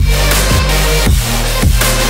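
Electronic background music with a heavy bass and a steady beat, about two beats a second.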